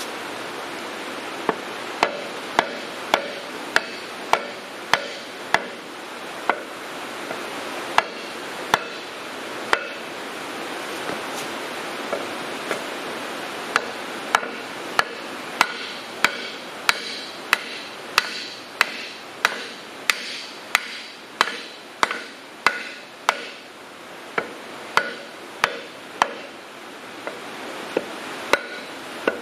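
Hammer blows on a wooden board held against a cylinder liner, driving the last wet sleeve into a 1967 John Deere 4020's six-cylinder engine block. Sharp knocks come in runs of about one to two a second, many with a short metallic ring, over a steady hiss.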